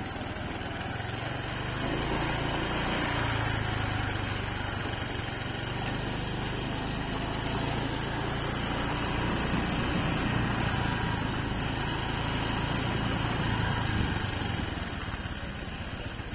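An engine running steadily, low-pitched. It grows louder about two seconds in and eases off near the end.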